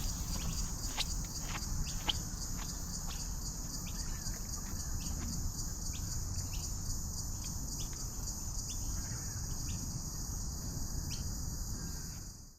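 Steady high-pitched chorus of insects in bushland, with short chirps scattered through it and a low rumble underneath.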